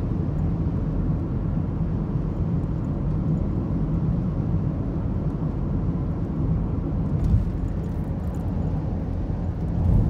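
Steady road noise inside a moving car's cabin, tyres and engine giving a low, even rumble, with a small bump about seven seconds in.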